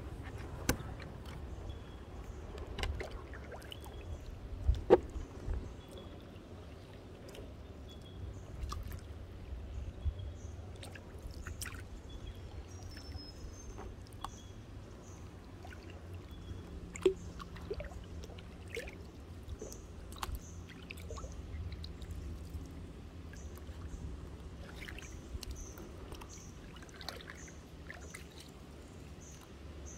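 Canoe paddling: the paddle dipping and water trickling and sloshing, with scattered sharp knocks, the loudest about five seconds in and again around seventeen seconds. Faint short high chirps come and go.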